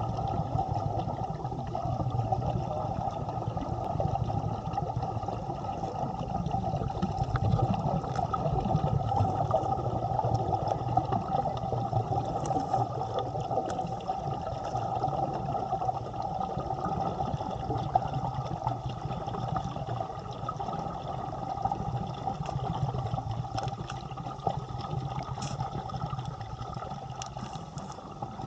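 Air venting from a copper standard diving helmet, heard underwater through the camera: a steady rushing bubble noise with a few faint clicks.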